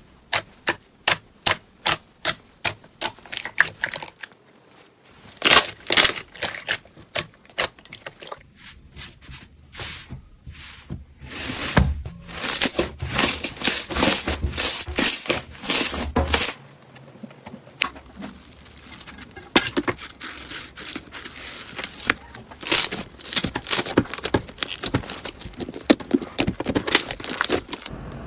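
Slime squeezed and pressed by hand, giving crisp crackling and popping clicks. They come evenly, about two a second, at first, then bunch into denser crackling.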